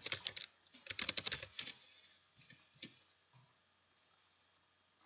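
Fast typing on a computer keyboard for nearly two seconds, then a few single key clicks, after which it goes quiet.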